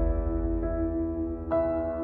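Background music of held chords; the low bass fades out and a new chord comes in about one and a half seconds in.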